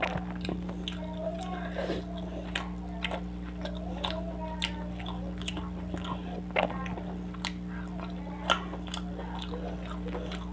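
Close-miked chewing of a mouthful of fish curry and paratha, wet and smacking, with many sharp mouth clicks scattered throughout, the loudest about two-thirds of the way in.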